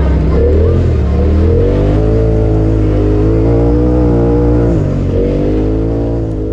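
Side-by-side UTV engine pulling under throttle on a dirt trail, its pitch climbing and holding, then dropping sharply for a moment about three-quarters through before picking up again.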